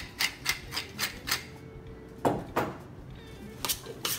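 Hand-held pepper mill being twisted, grinding with a clicking about four times a second, which stops after about a second and a half. A few knocks follow.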